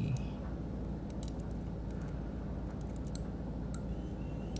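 A steady low background hum with a few faint, sparse clicks.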